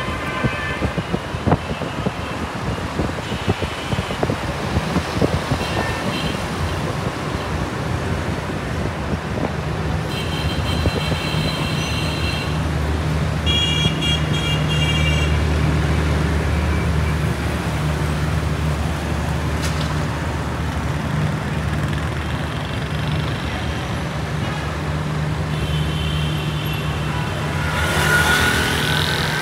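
City road traffic heard from a moving car: a steady engine and tyre drone, with car horns honking several times, longer blasts about a third of the way in, around the halfway point and near the end. Near the end a vehicle rushes past close by.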